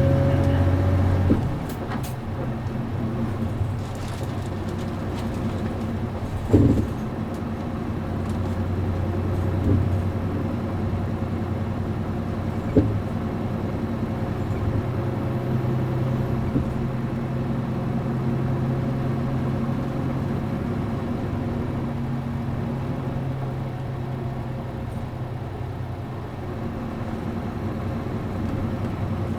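Onboard running sound of a PKG-AA274KAN route bus with its MD92TJ diesel engine and 5-speed gearbox: the engine pulls with a rising whine that cuts off about a second in, then runs on steadily. Two sharp knocks stand out, one near a quarter of the way in and one near halfway.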